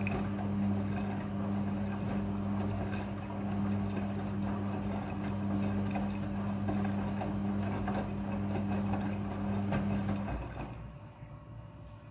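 Front-loading washing machine running: a steady electrical hum with water rushing through it, which cuts off about ten seconds in.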